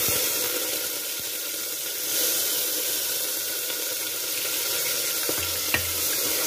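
Chopped onion, green chillies and curry leaves sizzling steadily in hot oil in a pressure-cooker pot, just added to the oil. A wooden spoon stirs them, knocking lightly against the pot twice near the end.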